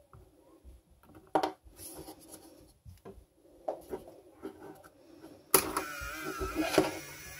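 Scattered clicks and taps of a 3D-printed plastic useless machine being handled, then about five and a half seconds in its small gear motor starts running with a wavering whine.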